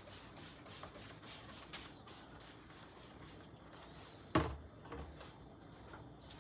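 Rhythmic scrubbing of a kitchen surface, about three strokes a second, which stops about halfway through. A single sharp knock about four seconds in is the loudest sound, followed shortly by a softer one.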